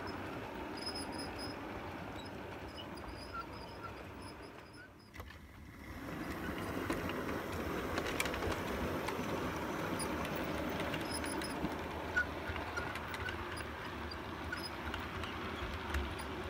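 Model railway locomotive running on track, its motor whirring and wheels rattling along the rails, with a few faint high squeaks. It dips briefly about five seconds in, then grows louder as a Bulleid Pacific hauling a rake of coaches passes close by.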